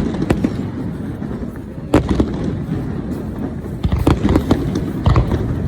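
Aerial fireworks bursting. There is a sharp bang at the start and another about two seconds in, then a quick run of bangs and crackling from about four seconds in, over a steady low rumble.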